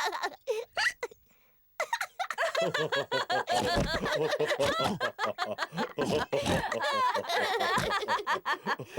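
Several cartoon characters laughing together, high and low voices overlapping, after a short near-silent gap about a second in.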